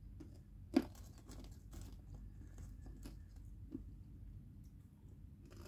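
Faint crunching and small clicks of popcorn being handled and eaten by hand, with one sharper click just under a second in.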